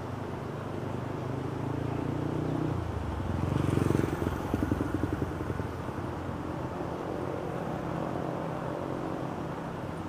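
Road traffic rumbling steadily, with a motor vehicle passing close about four seconds in, its engine pulsing rapidly.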